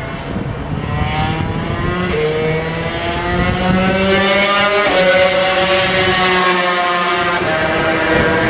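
Honda NSR250 two-stroke V-twin 250cc Grand Prix racing motorcycles running on track. The engine note climbs in pitch for the first few seconds, breaks about five seconds in and falls away, then rises again near the end.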